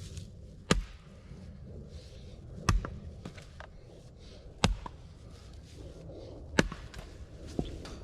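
An axe striking wood, splitting log sections with four hard blows about two seconds apart and a lighter one near the end.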